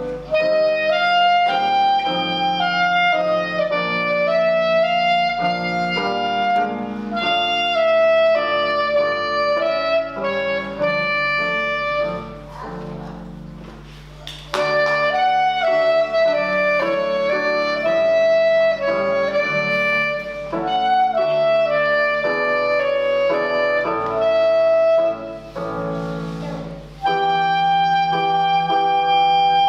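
Clarinet solo: a melody of held and stepping notes, going soft for a couple of seconds near the middle before coming back in strongly.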